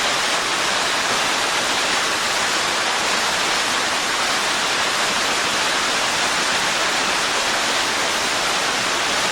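Tall waterfall pouring steadily: an even, unbroken rush of falling water.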